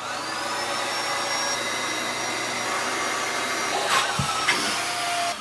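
Handheld electric air pump running, blowing air into one chamber of a vinyl inflatable mat. Its whine rises as the motor spins up at the start, holds steady, and cuts off at the end.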